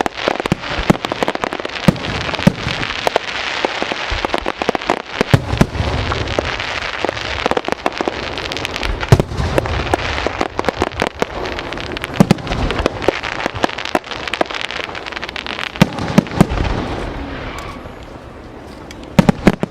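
Aerial fireworks display: a dense run of sharp shell bursts over continuous crackling, with deep booms now and then. It thins out near the end, then a few more sharp bangs go off.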